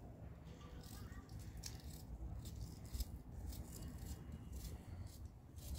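Garlic being peeled by hand with small knives: faint, irregular clicks and light rattles as the knife tips nick the cloves and the papery skins are pulled away.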